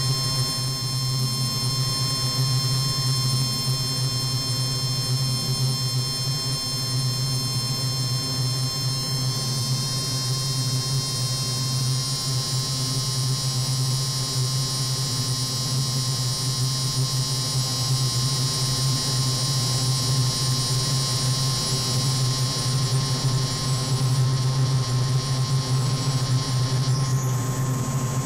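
Noisy ambient synthesizer drone from a Moog Grandmother and Eurorack modules: a steady low buzzing hum under a fixed middle tone and a cluster of high whistling tones. The high tones slide and smear about ten to thirteen seconds in and shift again near the end.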